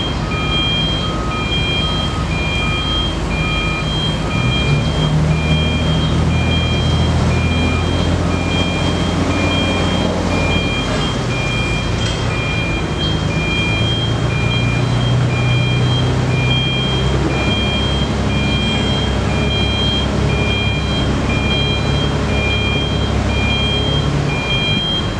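Heavy diesel construction machinery, most plausibly a crawler crane piling rig, running steadily, its engine note rising and settling with load, while an electronic warning alarm beeps about once a second.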